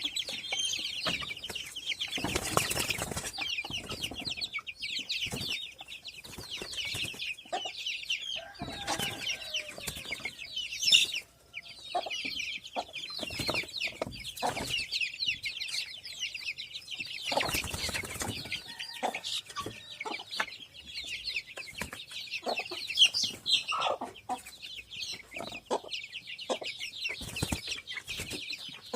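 Many kampung chicks peeping constantly in high, overlapping chirps, with a few lower clucks and scattered knocks and rustles, and a brief break about eleven seconds in.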